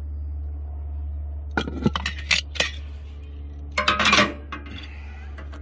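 Sharp metal clinks against a cast-iron Dutch oven and its lid, which is heaped with hot coals: a few strikes about two seconds in, then a louder cluster of clinks and a scrape about four seconds in.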